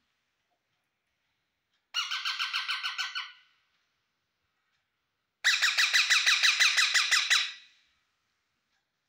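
Rose-ringed (Indian ringneck) parakeet calling in two quick runs of rapidly repeated harsh notes, about eight or nine a second: a short run about two seconds in, then a longer, louder run starting after about five and a half seconds.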